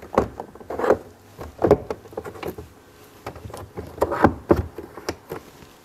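Several irregularly spaced knocks and clunks as a pleather-covered engine cover panel is pushed down into the BMW i8's rear compartment and its cam locks are turned.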